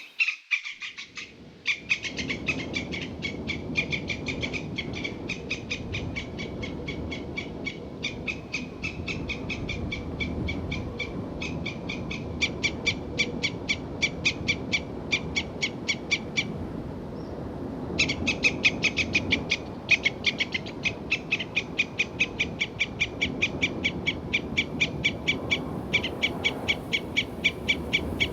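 An animal calling: a long series of short, high notes evenly repeated about four or five times a second, with a brief pause partway through, over steady low background noise.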